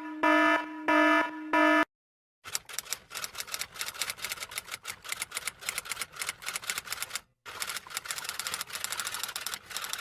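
A few short pitched electronic tones, then after a short silence a fast, uneven run of typing clicks like a typewriter or keyboard, breaking off briefly about seven seconds in.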